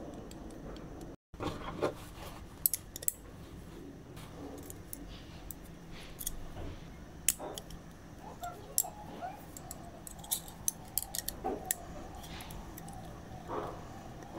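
Scattered sharp metal clicks and clinks of a combination wrench working the pivot nut of a pair of old, rusty tailor's scissors, the steel handles and blades knocking together as they are turned in the hands, during disassembly.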